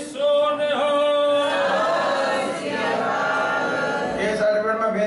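Call and response: one man's voice over the loudspeakers holds a long call, and many voices of the congregation answer together from about a second and a half in. The lone call starts again about four seconds in.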